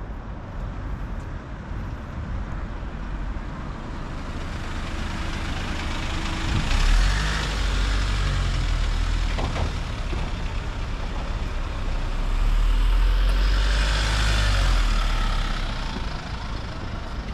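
Road traffic going past: a steady low rumble with two vehicles passing close, one about seven seconds in and a louder, longer one around thirteen to fifteen seconds, each swelling and fading away.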